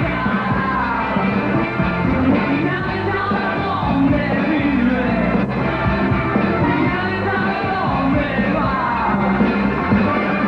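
Rock band playing live, with a lead singer singing over steady bass and drums.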